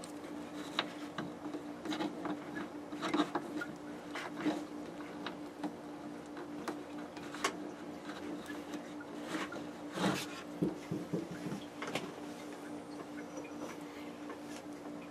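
Scattered clicks, taps and light rattles of small parts and tools being handled, over a steady low hum.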